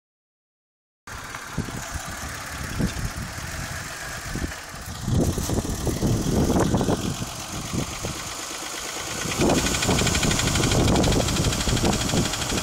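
1991 Toyota Camry engine running with a knock that came on after the engine overheated, starting about a second in. The knocking gets louder for a couple of seconds about five seconds in and again from about nine and a half seconds.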